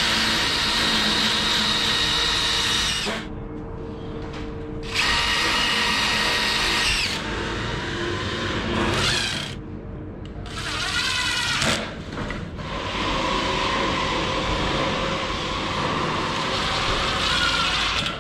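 Cordless drill running in several separate bursts of a few seconds each, one with a pitch that rises and falls, and a longer steady run near the end.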